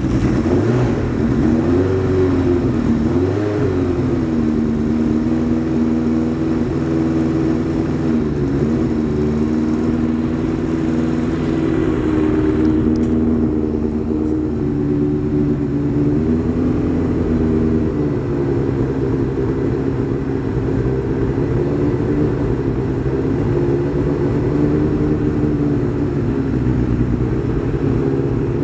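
1983 Honda CB1123F's air-cooled four-cylinder engine idling on a little choke seconds after a cold start. Its revs waver for the first few seconds, then settle into a steady idle.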